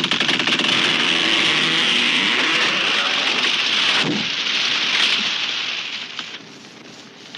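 A tree crashing down: a loud rush of breaking branches and leaves, a heavy impact about four seconds in, then the branches settling and the rustle dying away.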